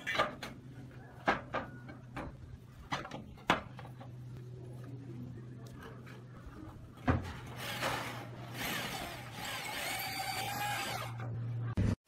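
Roof tiles clinking and knocking as they are handled and set onto steel roof battens: several sharp knocks in the first few seconds and a heavier thump about seven seconds in, over a steady low hum, with a stretch of rougher noise near the end.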